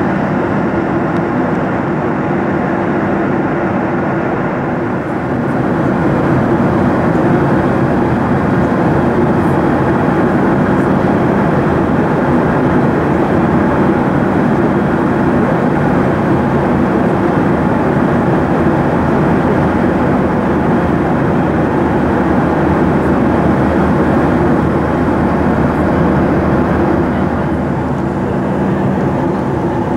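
Steady cabin noise of a jet airliner in flight: engine and airflow noise with a low steady hum underneath. It grows slightly louder about six seconds in and eases a little near the end.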